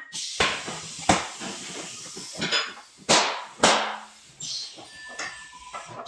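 Sharp knocks and strikes, four loud ones at uneven intervals over a few seconds, with lighter clatter between them.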